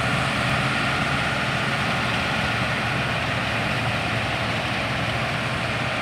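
New Holland combine harvester running steadily as it cuts and threshes wheat: the constant drone of its diesel engine and working machinery.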